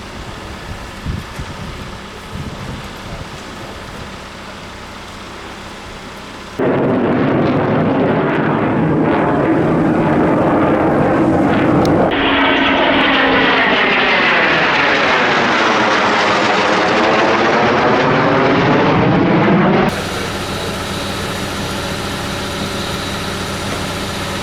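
A loud aircraft passing low overhead, its noise swelling with a sweeping rise and fall of pitch. The sound starts and stops abruptly, as at edits, after a stretch of quieter steady background noise.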